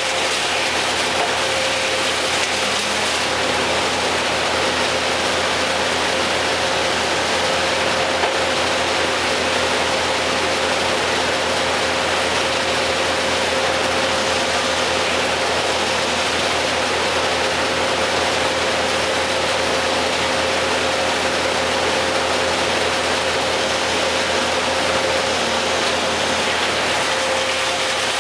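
An engine running steadily at a constant pitch and level, with a steady hum over a wash of mechanical noise.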